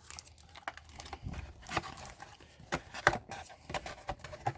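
Irregular light taps, clicks and rustles of booster packs and cards being handled and set down on a table.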